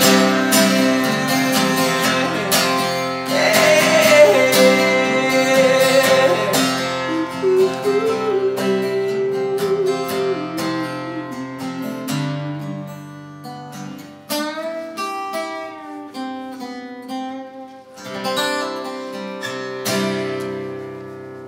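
Acoustic guitar strummed and picked through a song's closing bars, the chords growing quieter over the last several seconds as the final notes ring out.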